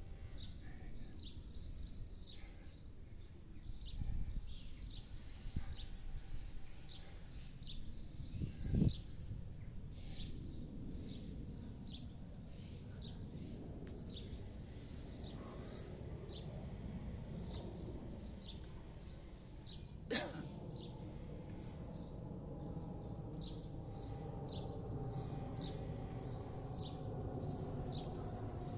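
A bird calling over and over in short, high, falling chirps, about one or two a second, over a low rumbling background noise. A single sharp click comes about twenty seconds in.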